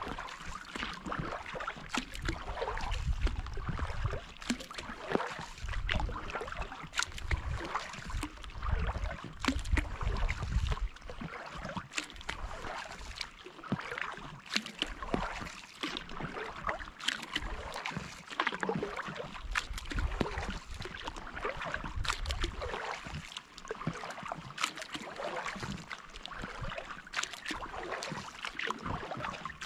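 Kayak paddle strokes in calm lake water: repeated dips, splashes and drips from the blades as the kayak glides. A low rumble runs under the first ten seconds or so.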